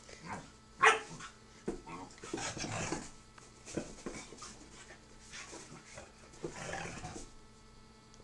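Two dogs play-fighting, panting and making short vocal sounds in irregular bursts, the loudest a sharp one about a second in.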